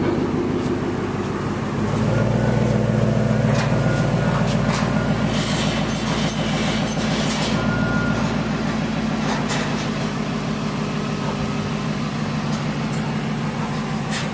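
1999 Ford F-250 pickup's engine idling steadily, growing a little louder about two seconds in, with a few light clicks over it.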